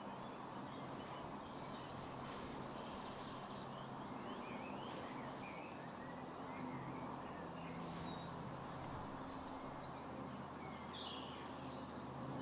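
Faint outdoor ambience: scattered short bird chirps over a steady hiss and a low steady hum.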